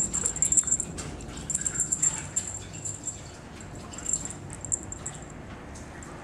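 Light scratching and rustling in quick, irregular bursts as a kitten bats at a swishing teaser toy on a tabletop, thinning out near the end.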